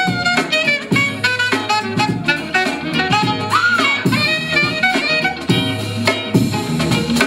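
Breakbeat-style music with a melody of short, horn-like notes over a steady drum beat. About three and a half seconds in, one note swoops up and back down.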